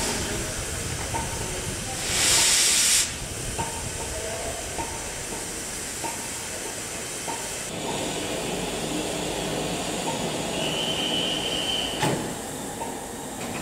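Steam train running slowly, its wheels clicking over rail joints about once a second, with a loud burst of steam hiss lasting about a second, two seconds in. Near the end comes a faint brief high squeal, then a sharp knock.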